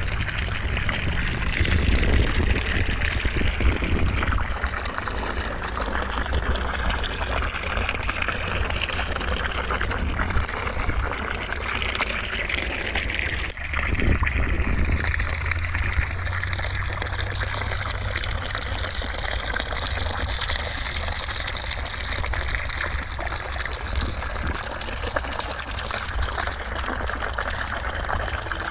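Steady white noise: a constant, even rushing hiss with a low rumble beneath it, briefly dipping about halfway through.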